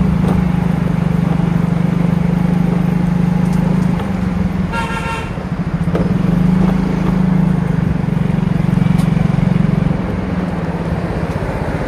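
Motorcycle engine running steadily while riding at low speed. About five seconds in, a vehicle horn toots once, briefly.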